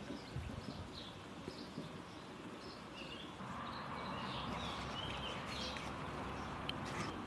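Outdoor garden ambience: small birds chirping here and there over a steady background hum, which grows a little fuller about three seconds in.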